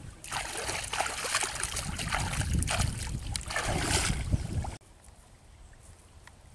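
Legs wading and splashing through shallow muddy water, in a run of heavy sloshing surges. The splashing cuts off abruptly about five seconds in, leaving only faint outdoor background.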